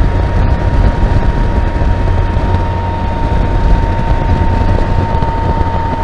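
Three-wheeled Can-Am Spyder F3T riding at highway speed, about 50 mph: a heavy rush of wind on the microphone with a loud, steady hum held at one pitch throughout. The owner believes the hum comes from the misaligned final drive belt rubbing against the side of the front pulley.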